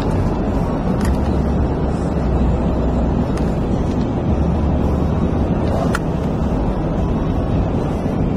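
Steady low rumble of road and wind noise from a car driving along.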